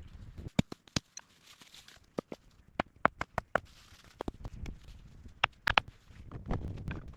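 A series of irregular sharp clicks and knocks, with a couple of brief rustles between them.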